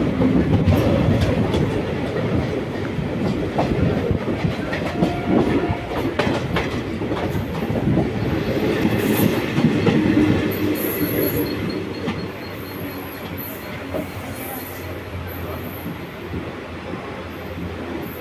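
Indian Railways passenger coach rolling over points and rail joints, its wheels clattering and rumbling. The sound grows quieter about two-thirds of the way through, with faint high-pitched wheel squeals in the later part.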